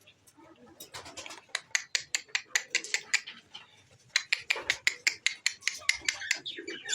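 Two runs of rapid sharp tapping, about five or six taps a second, each lasting two to three seconds with a short pause between.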